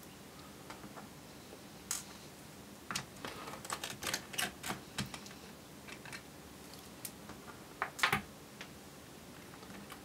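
Light, scattered clicks and taps of a small Phillips screwdriver undoing the screws of a laptop's 2.5-inch drive mounting bracket, with handling clicks of the bracket and tools. Two sharper clicks come about eight seconds in.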